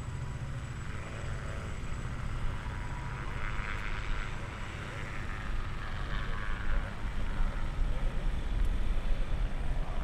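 Propeller engines of light aircraft droning from a distance, swelling for a few seconds in the middle, over a steady low rumble.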